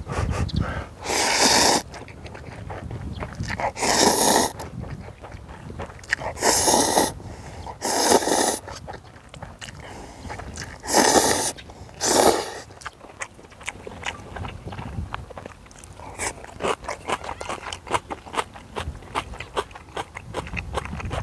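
Instant ramen noodles slurped in six loud, noisy pulls of about half a second to a second each over the first dozen seconds, then close-up chewing with many small quick clicks. A steady low wind rumble on the microphone runs underneath.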